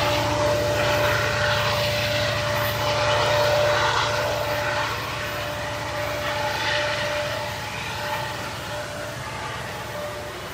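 CN SD70M-2 diesel locomotive, working as the rear distributed-power unit of a double-stack train, running under power as it moves away; its 16-cylinder EMD 710 engine's pulsing grows steadily fainter. A steady whine runs alongside and fades out near the end.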